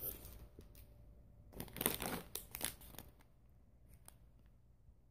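Plastic snack packets crinkling as a hand rummages among them in a cardboard box and lifts one out, mostly in one burst of about a second starting about a second and a half in.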